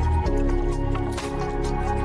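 Background music: held synth chords that change about a quarter second in, over a light, quick ticking beat.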